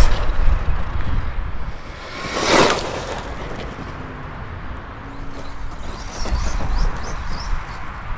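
Arrma Outcast 6S electric RC basher with a brushless motor, driving past at speed on dirt: a loud rushing whoosh at the start and another about two and a half seconds in, then quieter scratchy sounds of the truck further off.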